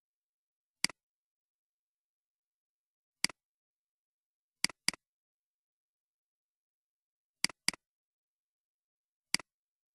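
Computer mouse clicks, each a sharp tick with a quick release: seven in all, single clicks about a second in, about three seconds in and near the end, and two quick pairs in between, typical of double-clicks.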